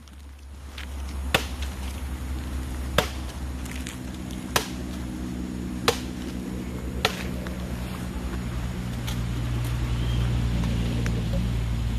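Bamboo being cut with a blade: five sharp chops about a second and a half apart, over a steady low hum.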